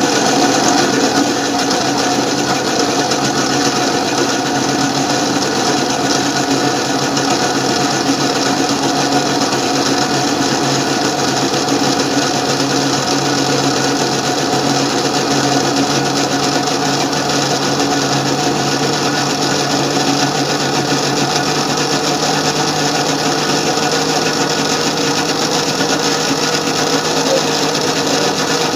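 Electric mixer grinder's motor running steadily at speed, a loud, even whirr.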